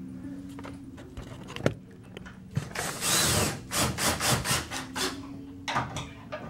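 Ryobi cordless drill driving a screw to fasten a shade's motor bracket: a loud whir about three seconds in, then a quick run of short bursts, about six a second, as the screw is run home.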